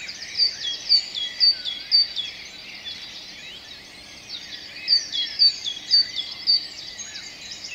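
Songbirds singing at dawn, with many chirps. The loudest bird repeats a high two-note phrase about twice a second: four times in the first two seconds, and four more just past the middle.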